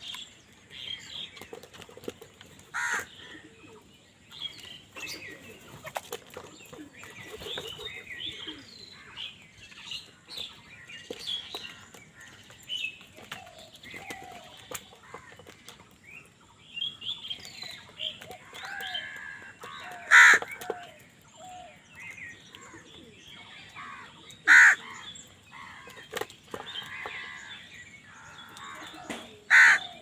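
A flock of house crows calling while they feed: a steady chatter of short calls, broken by a few loud, close caws at intervals, with wings flapping as birds hop and fly about.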